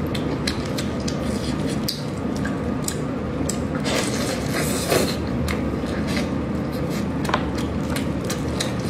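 Close-miked eating sounds: wet chewing, lip smacks and finger-sucking on braised chicken legs, many short clicks over a steady hiss. A louder burst of smacking comes about four to five seconds in.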